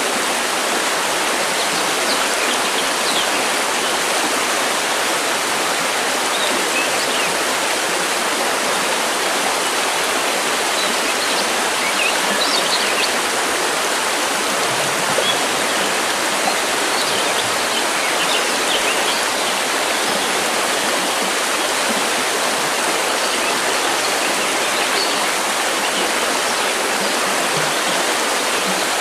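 River water rushing over stones, a steady, even flow, with faint bird chirps here and there.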